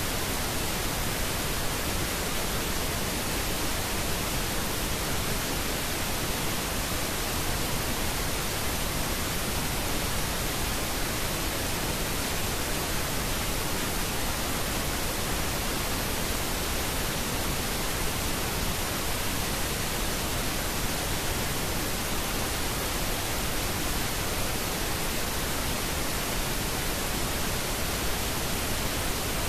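Steady, even hiss of pink noise with no change in level or pitch: the masking noise of a subliminal affirmation recording.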